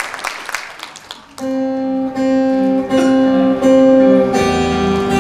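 Acoustic guitar starts playing about a second and a half in, after a few fading claps: a short run of held single notes, then a fuller strummed chord with bass near the end.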